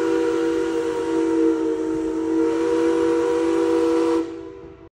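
River steamboat's steam whistle blowing one long chord of several steady tones over a hiss of steam, signalling departure. It stops about four seconds in and dies away within a second.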